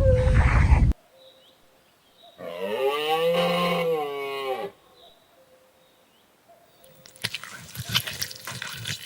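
A cow mooing once: a single drawn-out moo that rises and then falls in pitch, lasting about two seconds. Before it, a held call from the previous clip cuts off about a second in. Near the end, an unrelated rough, crackling sound with many quick clicks starts.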